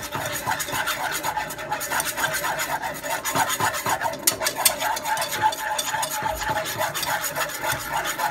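Wire whisk scraping round a small saucepan in fast, regular strokes as a cream sauce is whisked.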